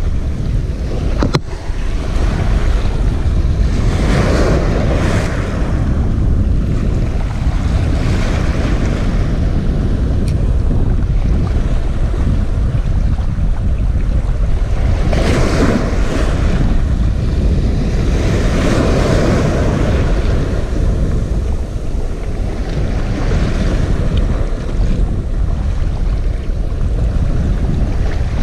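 Sea waves washing and surging against a rocky shoreline every several seconds, over a heavy, steady rumble of wind buffeting the microphone.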